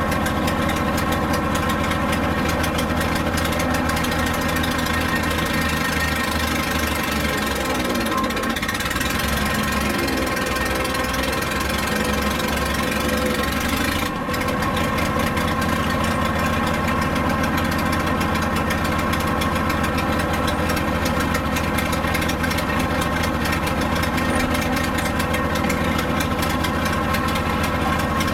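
The straight-piped gasoline engine of a Bantam C35 dragline crane runs loud and steady while the crane digs. Its note wavers and shifts for a few seconds near the middle.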